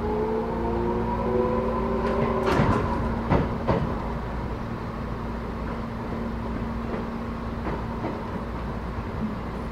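Tobu 10030 series electric train running, heard inside the passenger car: a rising motor whine as it picks up speed, a few sharp clacks of the wheels over rail joints about three seconds in, then steady running noise.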